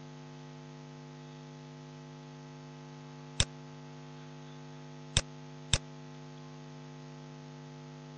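Steady electrical mains hum picked up in the recording, with three short sharp clicks from the computer's input as values are entered: one a little over three seconds in, then two close together about five to six seconds in.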